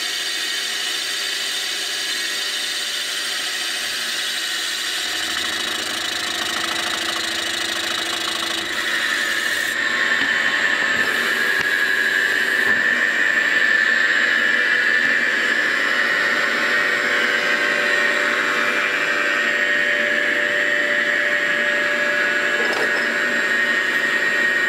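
CNC mill boring a cylinder bore in an aluminium Lotus 910 engine block. The cutting runs steadily with a high-pitched squeal, which grows louder about nine seconds in.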